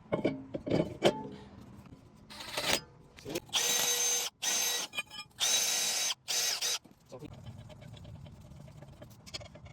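A power tool running in four short bursts of about a second each, with a steady whine in every burst, after a few light clicks and knocks of metal brake parts being handled.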